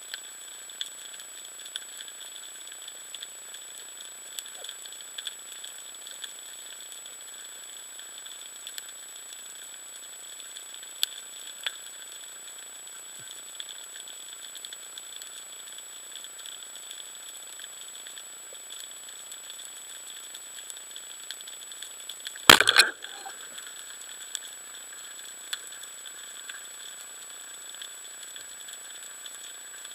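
Steady underwater hiss with faint scattered clicks, heard through an action camera's housing. About two-thirds of the way through, a single loud, sharp crack lasting about half a second: a rubber-band speargun being fired.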